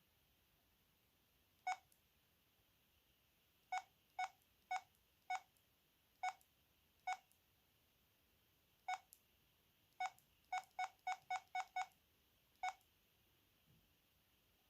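VK530 mobile phone's key-press beeps: about sixteen short, identical beeps as buttons are pressed. They are irregularly spaced, with a quick run of six in a row about two-thirds of the way through.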